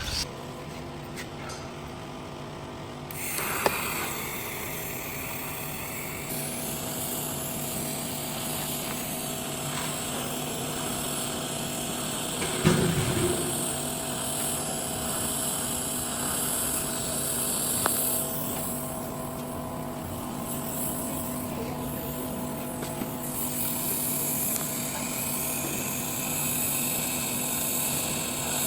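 Welding arc burning steadily from about three seconds in: a continuous hiss with a steady electrical hum under it, and a couple of brief knocks along the way.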